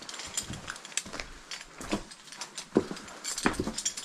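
Footsteps crunching and scuffing over loose rock slabs and dry leaf litter, with irregular clicks and clatters.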